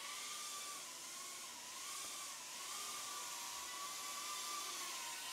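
BETAFPV Meteor75 Pro tiny whoop drone in flight: its small motors and ducted propellers make a faint whine, its pitch wavering up and down as the throttle changes.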